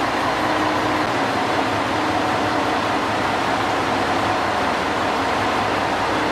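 An Anpanman-liveried train running, a steady, even rumble of the train in motion with faint steady tones over it.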